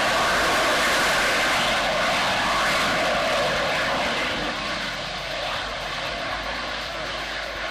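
Rocket engine of an Armadillo Aerospace mod vehicle firing as the vehicle descends to land, a loud steady rushing noise that grows a little quieter about halfway through.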